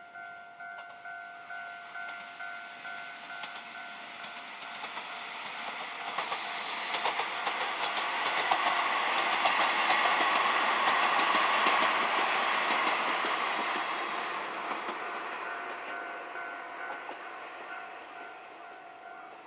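Old diesel railcar passing: its engine and wheels on the rail joints swell to their loudest about eight to thirteen seconds in, then fade away. A level-crossing bell dings steadily throughout.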